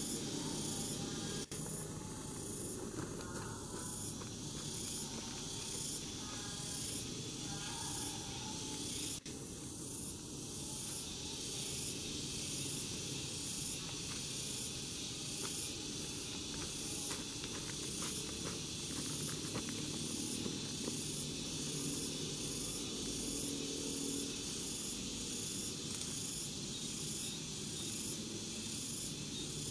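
A chorus of insects shrilling steadily, pulsing evenly over and over, above a low, even background rumble.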